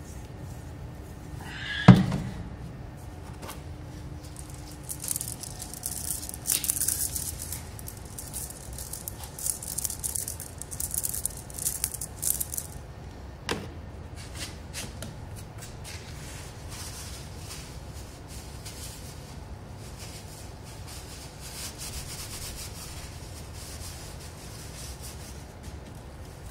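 Hand-handling noises around a bare engine block in a plastic tub, with no power tool running. A sharp knock comes about two seconds in. Several seconds of scratchy rubbing and rattling follow, then a single click, and after that only a low steady hum.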